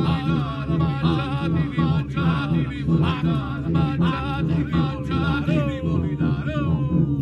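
Singing voices with a wavering vibrato over a low, pulsing drone; near the end the upper voice slides down in pitch and stops.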